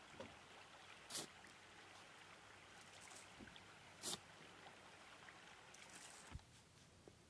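Faint, steady rush of a shallow creek flowing, with two brief sharp clicks about one and four seconds in. The water sound stops suddenly near the end.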